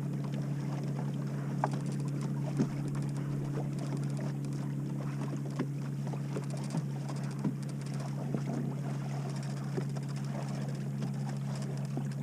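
A small boat's motor runs steadily with a low, even hum, while the boat creeps slowly over shallow water. A few faint knocks sound now and then.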